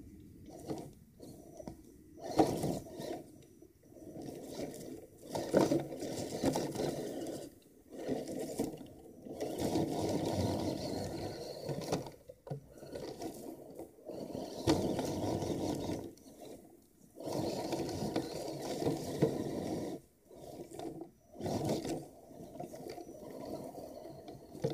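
Axial SCX10 1/10-scale RC crawler's electric motor and geared drivetrain whirring in stop-and-go bursts as it climbs, cutting out briefly several times between throttle pulls.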